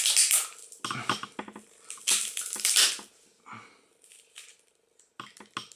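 Old Samsung mobile phone being crushed: three loud bursts of crunching and cracking plastic in the first three seconds, then a few quieter sharp clicks near the end.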